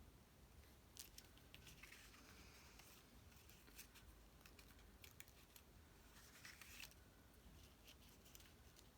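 Faint handling of cardstock paper pieces: scattered light clicks and two short rustles, from about one to seven seconds in.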